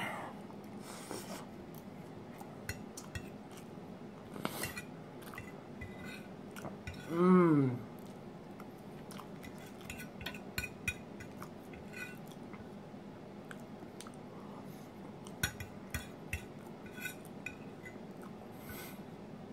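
Metal fork clinking and scraping on a ceramic plate, with chewing, as scattered light clicks. About seven seconds in, a short vocal sound from the eater, falling in pitch, is the loudest thing heard.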